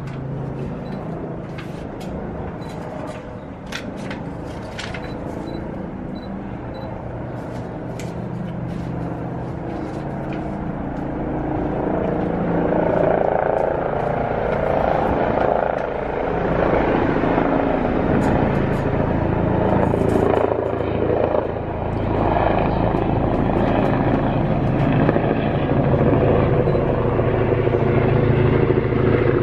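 Air ambulance helicopter approaching to land, its rotor and engine noise a steady low drone that grows clearly louder from about twelve seconds in.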